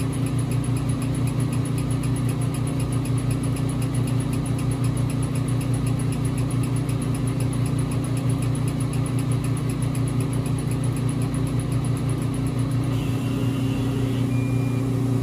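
Epilog Fusion M2 40 laser cutter raster-engraving wood: the laser head carriage sweeps rapidly back and forth with a fast, even ticking over a steady machine hum. Near the end the sweeping stops while the hum continues.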